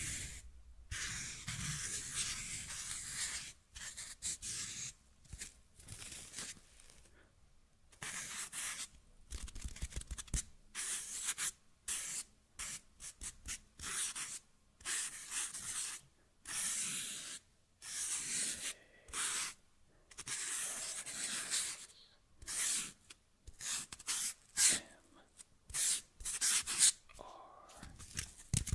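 Fingertips rubbing and scratching a foam sponge close to a microphone, in many short stop-start strokes of hissy friction noise with brief quiet gaps between them.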